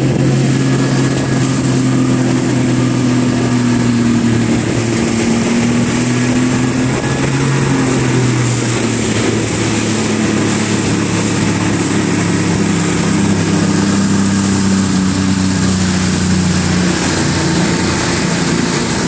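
Outboard motor of an inflatable boat running under way at speed, a steady engine hum mixed with a rushing hiss of wind and water. The engine note sinks a little about three quarters of the way through.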